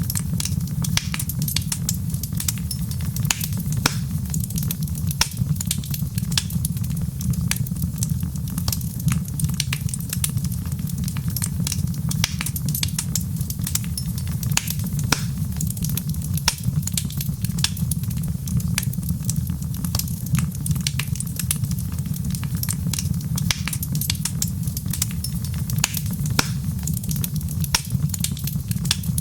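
Wood fire crackling: frequent irregular sharp pops and snaps over a steady low rumble.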